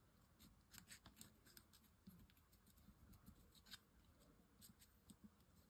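Near silence, with faint scattered ticks and rustles of card petals being handled and pressed into place by hand.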